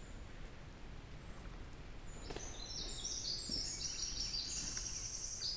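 Songbird singing a long, high, fast trill of quickly changing notes, starting about two seconds in, over faint low background noise of the forest.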